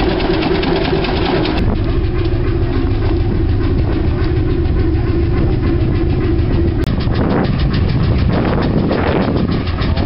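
Old hot-bulb engines running with a steady, rapid knocking beat. The sound's character changes abruptly twice.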